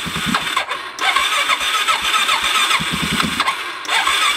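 Motorcycle engine cranking on its electric starter in repeated tries, with brief breaks about a second in and near the end. It is a hard start: the bike hasn't been run in a while and the choke is set halfway.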